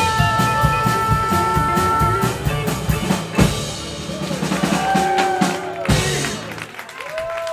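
Live rock and roll band playing the end of a song on drum kit, upright bass and electric and acoustic guitars. A busy drum beat runs to a hard hit about three and a half seconds in, then a few closing hits and ringing final notes fade out.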